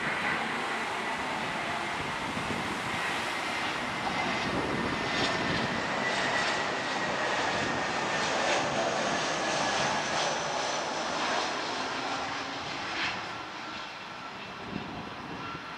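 Airbus A319's CFM56 turbofan engines on final approach, passing close by: a steady jet rumble with a high whine that slowly falls in pitch. It is loudest about halfway through and fades toward the end.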